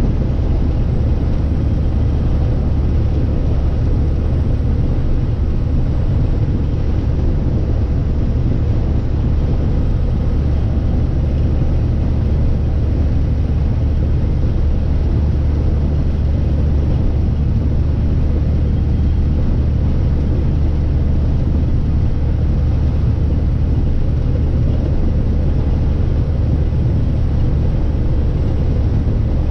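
Semi-truck diesel engine and road noise heard from inside the cab while cruising at a steady speed: a constant low drone that holds without change.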